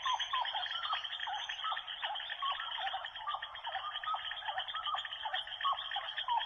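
A dense chorus of many small animals calling: short hooked chirps repeating about twice a second over a steady trilling background.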